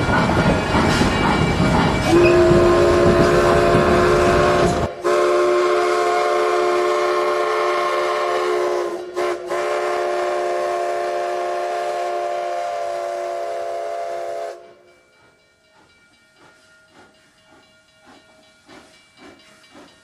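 Narrow-gauge steam train rolling into the station, its noise stopping abruptly about 5 seconds in. About 2 seconds in, a steam locomotive's chime whistle starts sounding a steady chord of several notes. It holds for about 12 seconds with one brief break and cuts off suddenly; only faint sounds follow.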